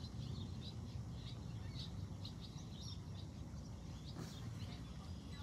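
Small birds chirping repeatedly in quick short calls over a steady low rumble.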